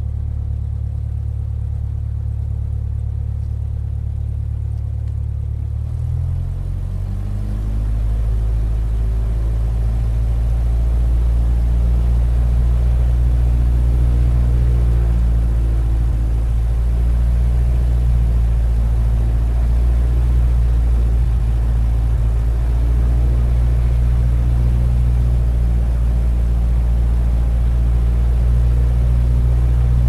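Propeller plane's engine running steadily at low power, then throttled up about six seconds in for take-off: its pitch rises and it grows louder over a few seconds, then it runs steadily at high power.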